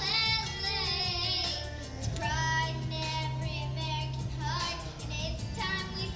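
Young girls singing a song into microphones over backing music, amplified through stage speakers; the sung notes waver with vibrato, over a steady low bass line.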